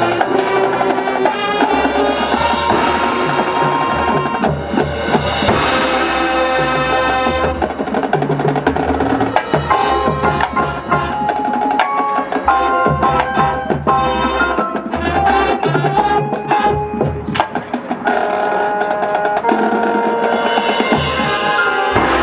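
High school marching band playing its field show: wind and brass chords over drumline and front-ensemble percussion.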